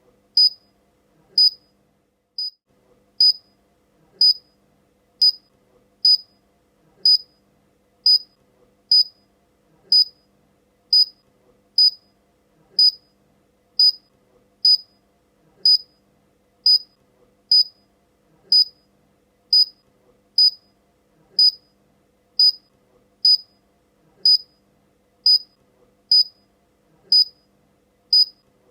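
Electronic beeper sounding short, high-pitched beeps at an even pace of about one a second. One beep near the start is noticeably quieter than the rest.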